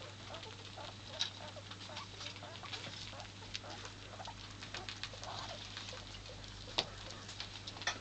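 Pet rats fishing peas out of a glass bowl of water: a light, irregular patter of small clicks and splashes from their paws, teeth and peas against the water and glass. Two sharper clinks stand out, about a second in and near the end.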